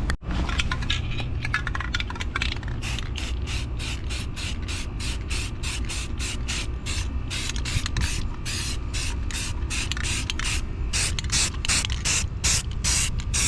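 Aerosol can of exhaust heat-wrap coating being shaken hard, its mixing ball rattling in quick, even strokes about three times a second.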